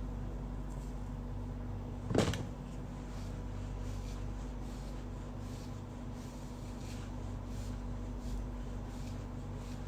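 A steady low hum throughout, with one short knock about two seconds in, like something being set down or a door or cupboard bumping.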